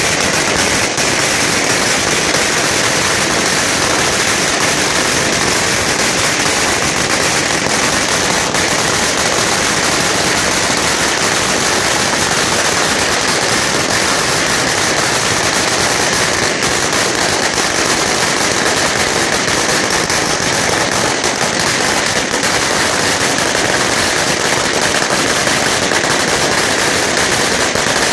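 A Mandarin 2000 roll of red firecrackers going off as it burns along the ground: a dense, unbroken rattle of rapid bangs at a steady level, like machine-gun fire.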